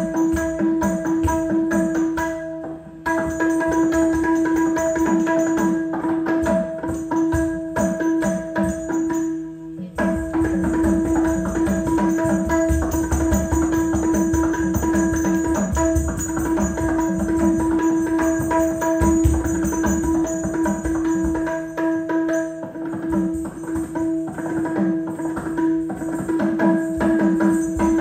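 Yakshagana background ensemble playing without singing: fast hand-drum strokes on the maddale over a steady drone, with jingling bells. The drumming grows fuller and louder about ten seconds in.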